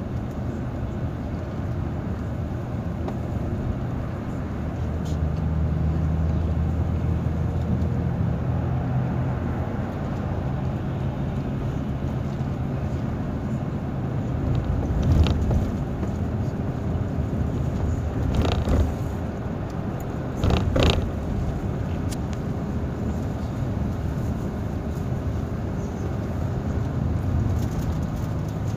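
Intercity coach's engine and tyres heard from inside the cabin while it cruises on a highway: a steady low drone that swells for a few seconds about five seconds in. A few short knocks come through about halfway.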